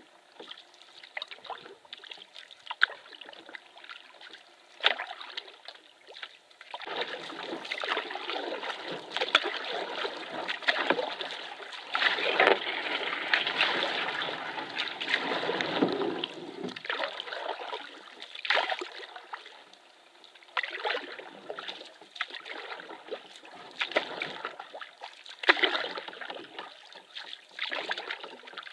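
Canoe paddling: irregular paddle strokes splashing and trickling in the water, with small knocks and drips, busiest and loudest in the middle stretch.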